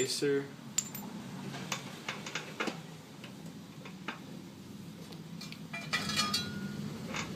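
Metal parts clinking and tapping as a lawn mower blade's spacer is fitted back on, with a quick run of clinks about six seconds in, over a low steady hum.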